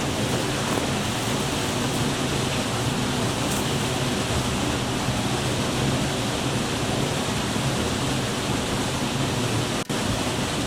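Steady rushing noise with no distinct events, cutting out for an instant near the end.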